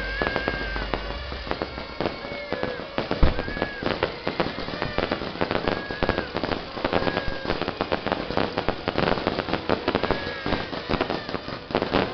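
Fireworks and firecrackers going off in dense, rapid crackling strings, with short whistles sounding every second or two and a louder bang about three seconds in.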